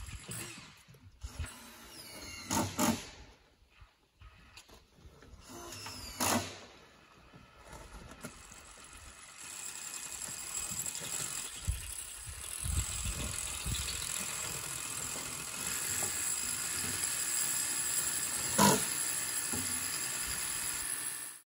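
Carpentry on wooden concrete footing forms: a few sharp knocks of wood and tools, the loudest near the end, over a steady mechanical noise with a high hiss that sets in about halfway through.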